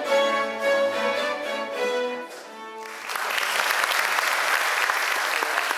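A chamber string orchestra plays the last notes of a piece, ending about two seconds in. About a second later the audience breaks into steady applause.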